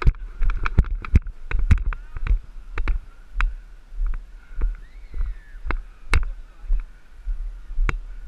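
Footsteps jolting a body-worn GoPro as the wearer jogs on grass: a run of sharp knocks about twice a second over a low wind rumble on the microphone, with faint distant shouts about halfway through.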